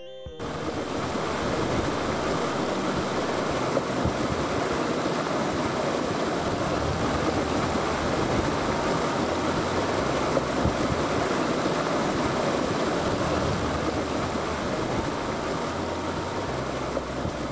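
Water running fast along a concrete irrigation channel, a steady gurgling flow. It cuts in suddenly just after the start.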